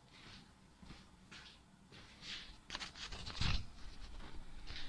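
Workshop handling noise: scattered rustles and clicks, with a dull thump about three and a half seconds in.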